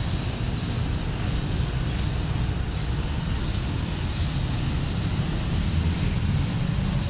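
Steady outdoor hiss with a low rumble, the noise of wind and handling on a moving handheld camera's microphone; a faint high hiss pulses about every two-thirds of a second.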